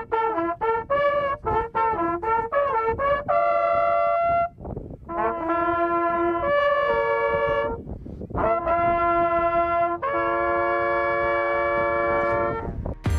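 Hunting horns blowing a signal: a run of quick short notes, then longer held notes with brief breaks between phrases. This is typical of horns sounded over the laid-out bag at the end of a hunt.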